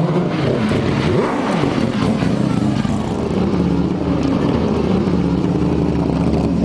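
Mazda Furai concept race car's three-rotor rotary engine running loud and steady, with a brief rise and fall in pitch about a second in.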